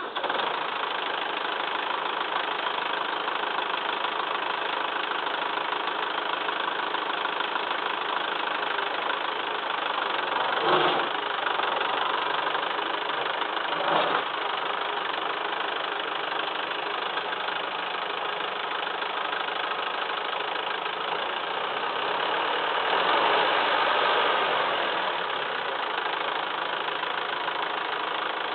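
Massey Ferguson 2635 tractor's diesel engine running steadily, with two brief louder surges about eleven and fourteen seconds in and a longer rise in level near the end.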